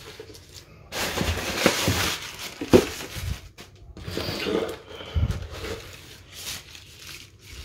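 Paper and plastic packaging rustling and crinkling as it is handled in a cardboard box, with a longer burst of rustling about a second in and a few soft knocks of the box.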